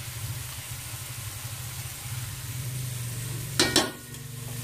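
Shrimp and tomato sautéing in a wok over a gas burner, sizzling softly over a steady low hum. About three and a half seconds in comes a loud metallic clatter as a pot is tipped against the wok to add the boiled jackfruit.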